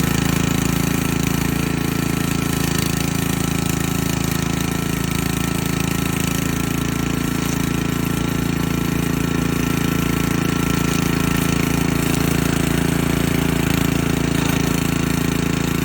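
Petrol engine of a remote-control lawn mower running steadily at constant speed with a fast, even firing beat.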